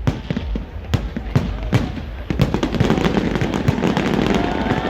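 Fireworks display: a rapid series of bangs and pops, growing into a dense, continuous run of crackling pops from about halfway through.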